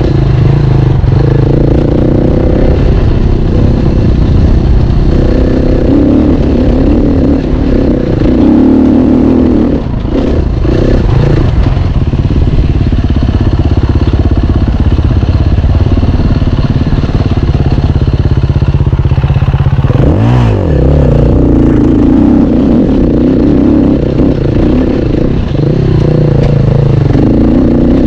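Enduro dirt bike engine running hard under load, the revs rising and falling with the throttle as it rides. About twenty seconds in there is one quick rev up and back down.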